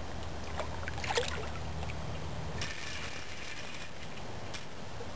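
Hooked carp splashing and stirring the water at the surface: a short splash about a second in and a longer splashing hiss around three seconds in, over a steady low rumble.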